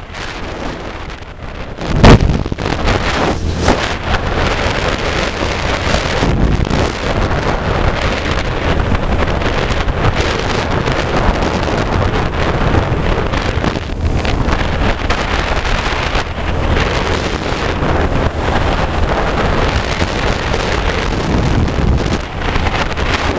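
Wind buffeting the microphone over the steady drone of the vehicle's engine and tyres at highway speed, with a sharp knock about two seconds in.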